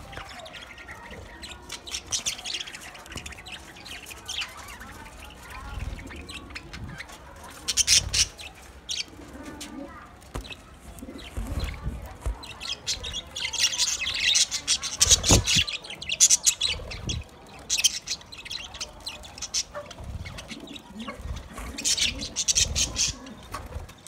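A flock of budgerigars chattering and chirping in quick runs of short high calls, busiest in the middle of the stretch and again near the end. There is one dull knock about halfway through.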